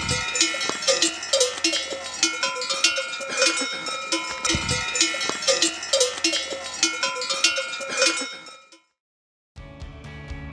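Cowbells on grazing cows clanging irregularly with a ringing metallic tone. The clanging fades out about eight seconds in, and after about a second of silence guitar music starts.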